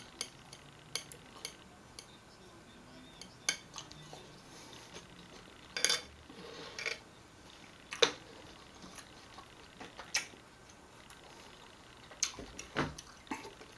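Small metal knife clicking and scraping against a glass dish while cutting up watermelon chunks: scattered sharp clinks, a few seconds apart, the loudest about eight seconds in.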